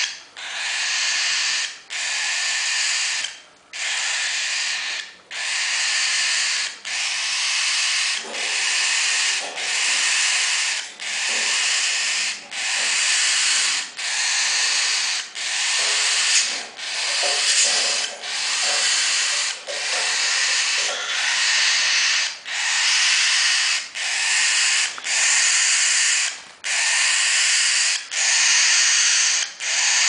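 About three-week-old cockatiel chicks giving raspy, hissing food-begging calls, one about every second in an unbroken rhythm.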